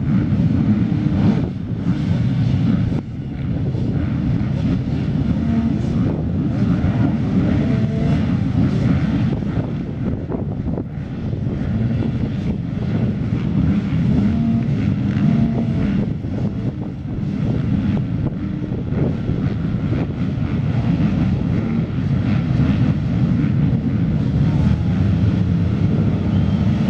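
Many motocross bike engines running together at the start gate, a dense steady drone with occasional short revs from individual bikes.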